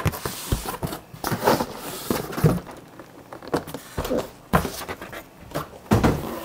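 Cardboard box handling: a boxed speaker set is slid and lifted out of a cardboard shipping carton, with irregular scraping and rustling of cardboard and several knocks against the box and desk.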